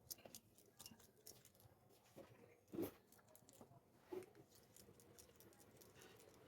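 Faint clicks and light scraping from a star screwdriver and the plastic casing of a small keypad phone as its back screws are undone. Two louder knocks come about three seconds in and again a little over a second later.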